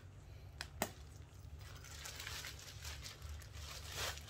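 Rustling and crinkling of a badminton racket's cover bag and plastic wrapping being handled, with two light clicks within the first second.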